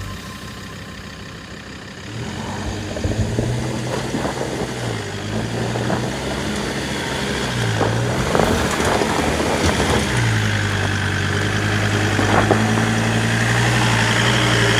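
A 4x4 vehicle's engine labouring at low speed over off-road terrain. It gets louder about two seconds in and its pitch dips and recovers a few times before holding steady. Scattered knocks and crackles are heard through it.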